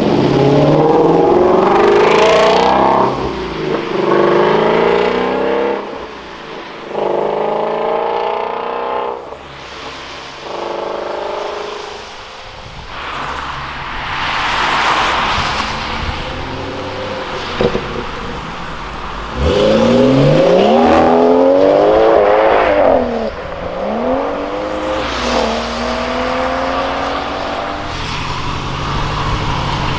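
Ford Mustang Shelby GT's V8 revving hard as it pulls away, its pitch rising and dropping through several upshifts. Later, other sports cars accelerate away in turn through their gears, with tyre hiss on wet tarmac.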